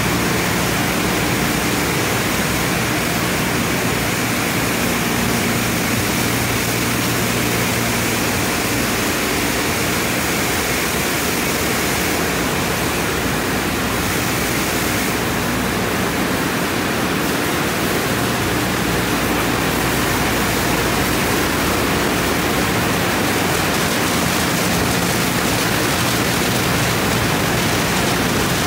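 Steady hiss of water spraying in a car wash tunnel, from a hand-held pressure-wash wand and an overhead spray arch, with a low steady hum underneath. The hiss grows a little brighter around the middle.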